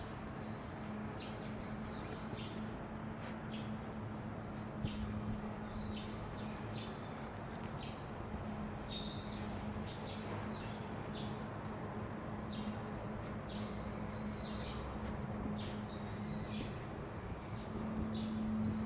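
Small birds calling over and over with short high chirps. Under them runs a steady low hum and faint outdoor background noise.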